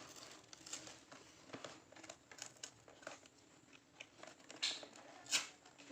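Packaging being handled: irregular crinkling and crackling with scattered small clicks, and two sharper snaps near the end.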